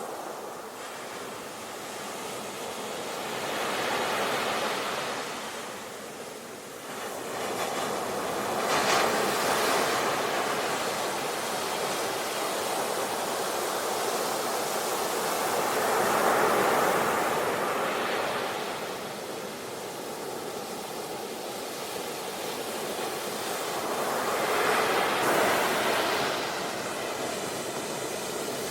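Sea waves washing onto the shore: a steady surf hiss that swells and eases as each wave comes in, four slow surges in all.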